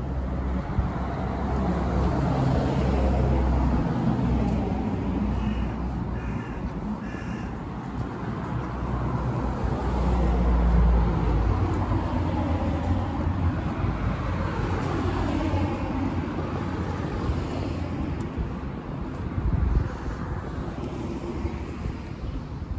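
Road traffic on a city street, cars passing with swells of engine and tyre noise. About six seconds in, a crow caws three times in quick succession.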